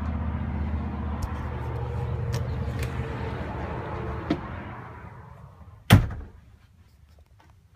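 A steady machinery hum that fades away after about four seconds, then a single loud bang about six seconds in: a door between the motorhome's rear garage and its living area shutting. Quiet room tone follows.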